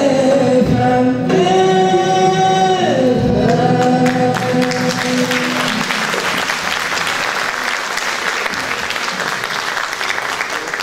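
A woman's solo voice holds long final notes of a Turkish song over the accompanying ensemble, ending about six seconds in. Applause from the audience and choir takes over and continues.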